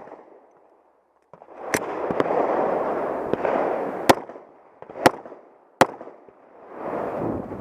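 Semi-automatic pistol fired during a timed match stage: four loud, sharp shots at uneven intervals, the last three coming faster, with a rough rushing noise rising and falling between them.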